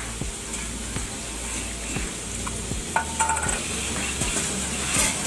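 Food sizzling in a hot pan while it is stirred and scraped with a metal spoon, with a ringing metal clank about three seconds in.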